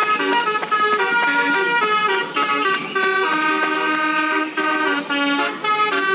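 Basuri telolet bus horn, a multi-tone musical horn, playing a melody of chord-like notes that change several times a second, with one longer held chord around the middle.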